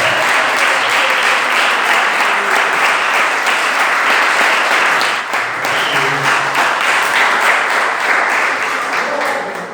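A congregation applauding: many people clapping together in a steady round that eases off slightly near the end.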